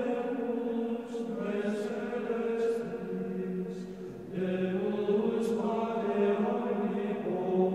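Voices singing a slow chant: long held notes that step from one pitch to another, with short breaks about a second in and about four seconds in.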